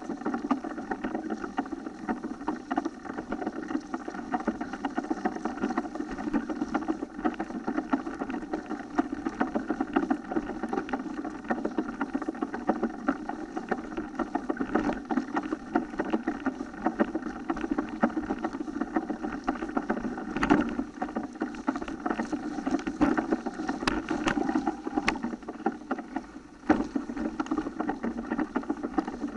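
Mountain bike rolling over a dirt forest trail strewn with fallen leaves: a steady rattling rumble of tyres and frame as heard by a camera riding along, with a few sharp knocks over bumps in the second half.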